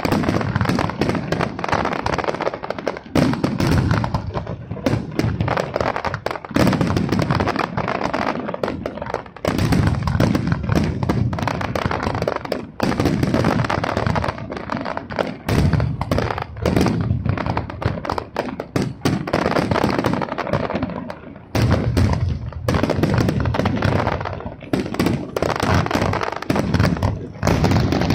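Aerial fireworks display: shells bursting in quick succession, their bangs overlapping with crackling into a nearly continuous barrage, broken by a few brief lulls.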